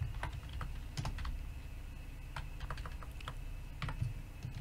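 Computer keyboard typing: irregular clusters of keystroke clicks, with a short pause in the middle.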